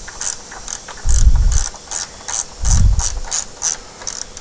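Small ratcheting driver with a T25 Torx bit clicking in a steady run, about three clicks a second, as a screw is backed out. Two dull thumps come about one second and three seconds in.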